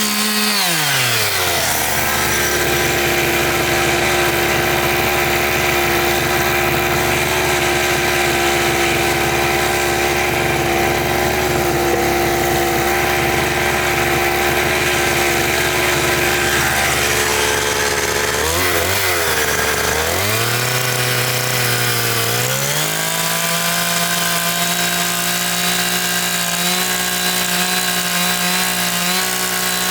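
A small engine drops from high revs to a low idle about a second in, idles steadily, then revs back up after about twenty seconds and holds at high speed.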